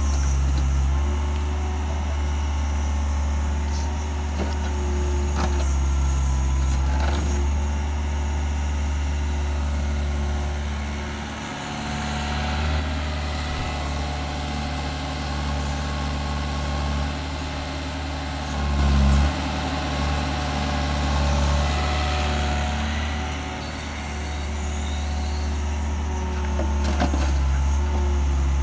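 Doosan DX55 mini excavator's Yanmar 4TNV four-cylinder diesel engine running steadily while it digs, its hydraulic tone stepping up and down as the boom and bucket move. Occasional knocks as the bucket works the soil, with a brief louder swell near the middle.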